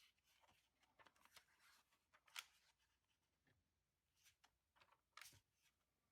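Near silence: room tone with a few faint, short clicks and rustles, the clearest about two and a half seconds in and again a little after five seconds.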